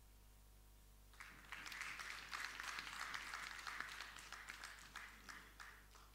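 Audience applauding: clapping starts about a second in, swells, then thins out and stops near the end.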